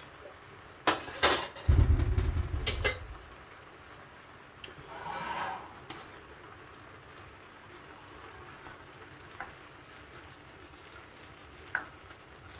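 Clatter of cookware: a few sharp knocks about a second in, then a loud low rumbling scrape as the frying pan is shifted on the electric hob. Later comes a brief scrape and a couple of light taps as a plastic spatula stirs the noodles in the pan.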